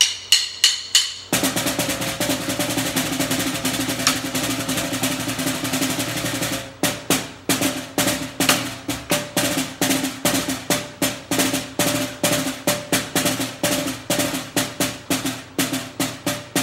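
Snare drum fitted with a Pearl muffle practice head, played with sticks: a few strokes, then a fast roll for about five seconds, then steady single strokes about four a second. The head gives a bouncy stroke with much of the snare's usual loud bite taken out.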